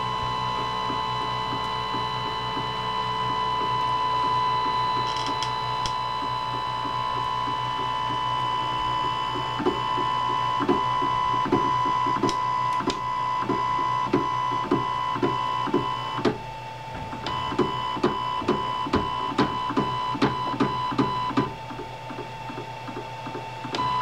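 Duplicator 4 3D printer running, its stepper motors whining in steady tones. From about ten seconds in comes a regular knocking, about one and a half knocks a second: the X axis skipping.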